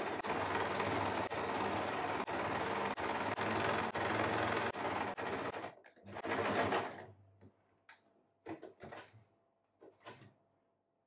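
Domestic electric sewing machine running steadily, stitching a sleeve into a garment's armhole, stopping a little over five seconds in. After a short final burst, only a few brief, quieter handling sounds follow as the fabric is moved under the presser foot.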